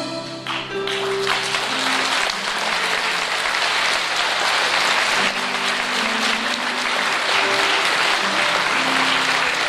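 An auditorium audience applauds, the clapping swelling in about a second in and holding steady. Instrumental music plays under it, with long held notes, as a song ends.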